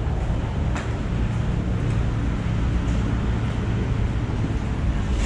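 Steady low rumble of background noise, with a faint click about a second in.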